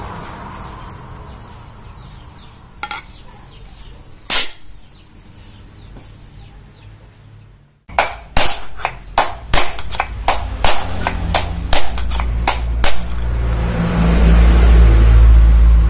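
A hammer striking metal, about a dozen sharp ringing blows at roughly two a second, with a single knock earlier. A low rumble builds under the blows towards the end.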